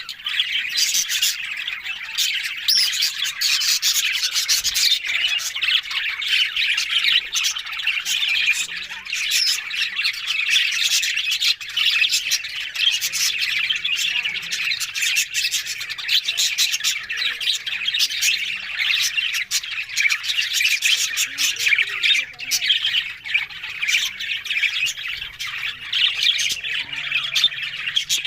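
Budgerigars chattering and squawking in a dense, unbroken stream of rapid chirps and scratchy calls.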